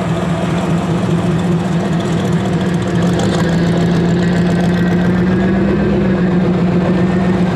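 Engine of a classic Chevrolet Impala idling as the car rolls slowly past at walking pace, a steady low hum that grows a little louder about three seconds in as it comes closest.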